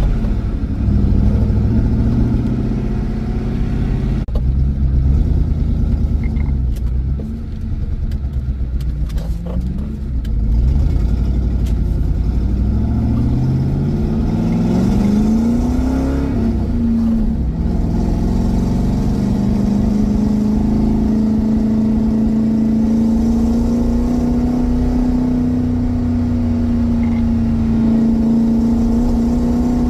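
V8 car engine under way. About halfway through it revs up through a gear, drops sharply at a shift, then settles into a steady drone at cruising speed.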